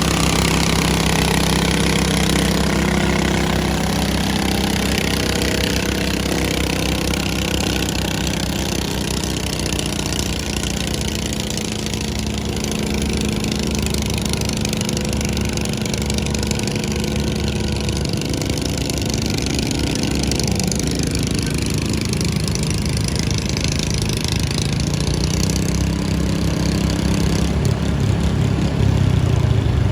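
Pulling lawn mower engine running loud and steady, easing off through the middle and building up again near the end.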